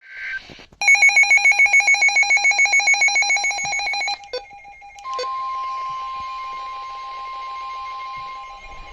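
Emergency Alert System audio on NOAA Weather Radio: the tail of a SAME data burst, then a loud, rapid electronic beeping (about five beeps a second) for some three seconds. After a couple of clicks, about five seconds in, the steady 1050 Hz weather-radio warning alarm tone starts over faint radio hiss.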